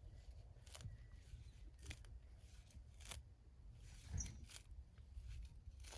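Faint, scattered crunching scrapes of a shovel blade being pushed into hard, dry garden soil, the loudest about four seconds in; the ground is too hard for the shovel to go in.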